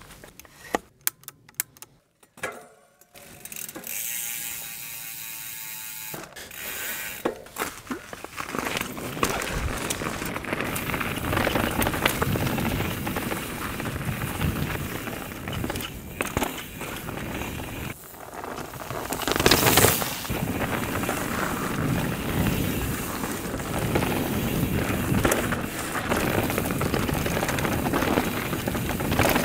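Canyon mountain bike ridden down a dirt singletrack: knobby tyres rolling over dirt and roots, with the chain and frame rattling over bumps and a louder rush about two-thirds of the way in. The first few seconds hold scattered clicks and the ratcheting of the rear hub as the bike is handled.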